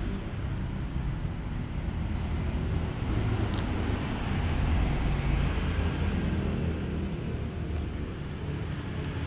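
Steady low rumble of background noise, with a few faint short ticks around the middle.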